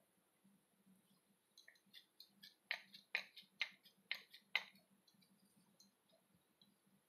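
A run of light, sharp clicks and taps as hands pat and press thekua dough into a carved wooden mould. Five louder ones fall about two a second in the middle.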